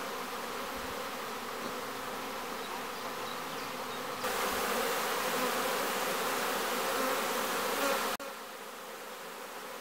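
Honeybees buzzing around the entrances of a row of wooden hives, a steady dense hum. It grows louder about four seconds in and drops back a little after eight seconds.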